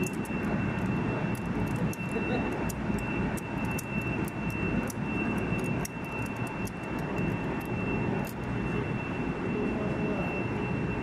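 Steady drone of running air-conditioning plant machinery with a constant high whine, overlaid by small irregular metallic clicks of a hand tool working on the thrust-bearing temperature-sensor terminal.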